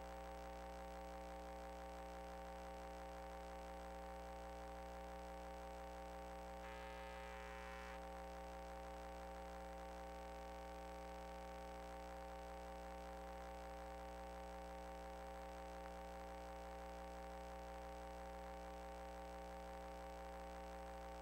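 Faint steady electrical hum made of several fixed tones, from the sewer inspection camera's recording system, with a brief faint higher-pitched sound about seven seconds in.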